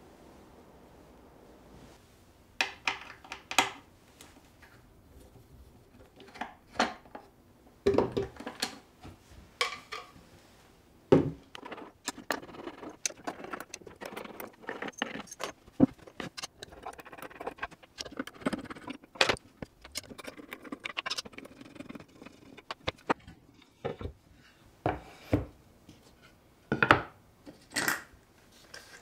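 Hands handling wooden and small metal parts: irregular clicks, knocks and light clinks, more than a dozen in all, with quieter rubbing and scraping between them.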